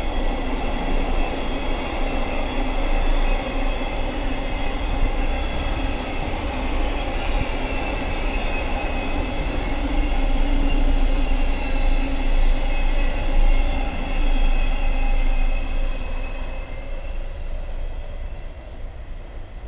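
Container wagons of a freight train rolling past on the rails: a steady rumble with a high wheel squeal held over it. It fades over the last few seconds as the end of the train draws away.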